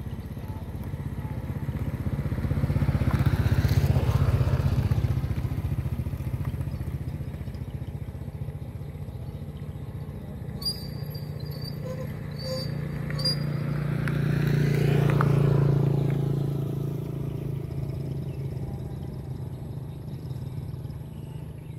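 Engine hum of passing vehicles: a steady low drone that swells up and fades away twice, about four seconds in and again around fifteen seconds. A few short high chirps come in the middle.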